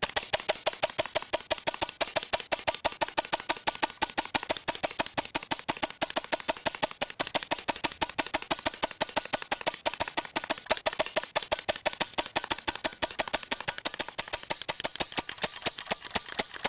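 HellBoy .177 CO2 BB air rifle firing a long, fast string of sharp shots, about six or seven a second, steady throughout: a CO2 cartridge being shot down in a shot-count test.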